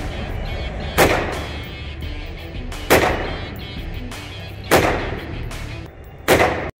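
Four single shots from an AR-15 rifle, roughly two seconds apart, each followed by a short echo from the indoor range. Background music plays under the shots.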